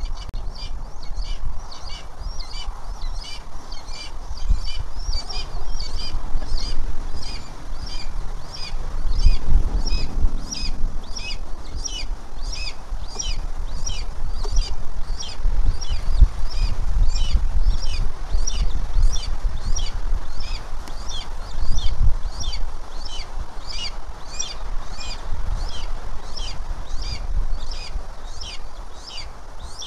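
A bird calling in a steady series of short, high chirps, about two a second, over a low rumbling noise that swells a few times.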